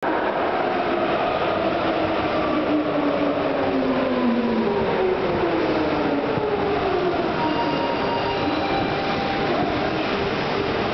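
Osaka Municipal Subway 70 series linear-motor train approaching the station through the tunnel: a steady running rumble with its VVVF inverter whine, several tones gliding down in pitch as it slows to arrive, then holding steadier.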